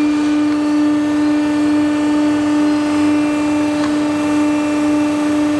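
Hydraulic power unit of a pipe-bending machine running steadily: a constant mechanical hum with one strong mid-pitched tone and its overtones.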